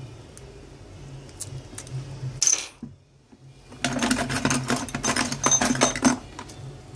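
Heat-resistant tape being pulled off its roll: a short rasp, then about two seconds of dense rapid crackling as the tape peels away. A steady low hum runs underneath.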